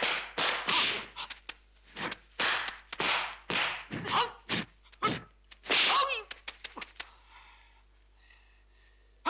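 Kung fu film fight sound effects: a quick run of about a dozen whooshing swings and smacking punch impacts, easing off into a quieter stretch for the last two seconds.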